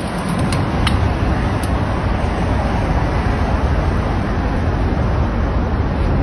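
Steady outdoor rumble of street traffic, with a few sharp clicks in the first two seconds.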